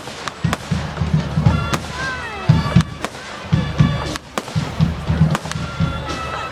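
Fireworks display: repeated sharp bangs and crackles over loud music with heavy bass pulses.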